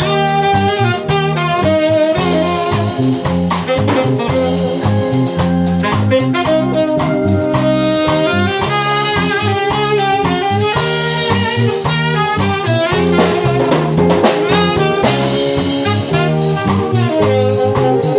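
Live small band playing a lambada-cumbia medley: saxophone carrying the melody over a drum kit keeping a steady beat, with keyboard and guitar accompaniment.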